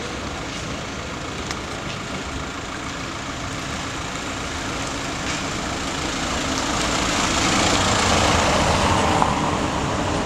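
A Volkswagen Caddy van driving past close by on a wet street, its engine and tyres growing steadily louder from about halfway through and peaking shortly before the end.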